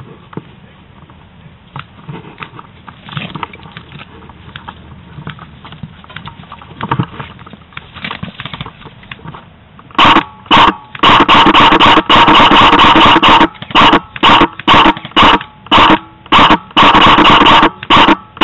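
Faint rustling and handling noise, then about ten seconds in, a string of very loud, distorted full-auto bursts from the airsoft electric gun that the camera is mounted on. There are about a dozen bursts of varying length with short pauses between them, each one a steady gearbox whine.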